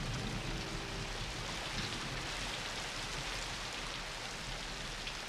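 Steady rain falling on a wet street, with runoff water running along the gutter into a storm drain.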